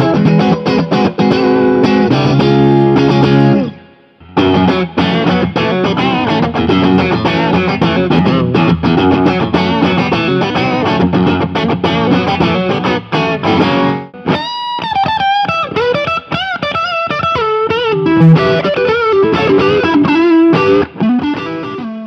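Crews Maniac Sound Vintage Line ST-60 Strat-style electric guitar with K&T S-61 Supreme pickups, played through an Eastern Music Device PD1 overdrive pedal into a Fender Vibro King tube amp. It plays driven chord riffs, breaks off briefly about four seconds in, and from about halfway moves to single-note lead lines with bent notes; the last note rings out.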